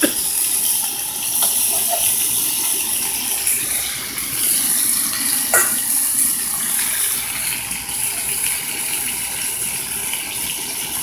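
Skin-on chicken pieces sizzling in a nonstick electric skillet, frying in the fat rendered from their own skin with no oil added: a steady frying hiss.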